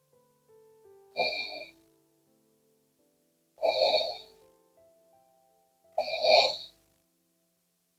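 A sleeping woman snoring, three loud snores about two and a half seconds apart, with soft background music of held notes between them.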